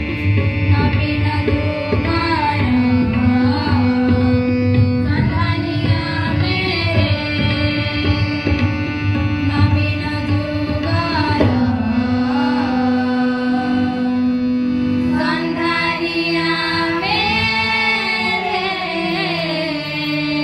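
Schoolgirls singing an Odia farewell song into microphones over an instrumental accompaniment with a held drone and drums; the drums drop out about three-quarters of the way through while the singing goes on.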